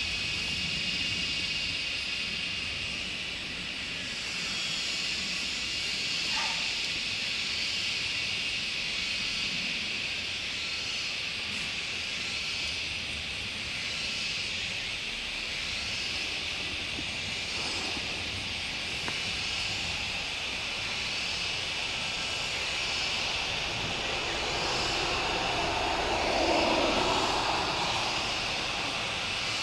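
Steady high-pitched outdoor hiss that pulses about once a second, with a broader swell of noise rising and fading about 25 seconds in.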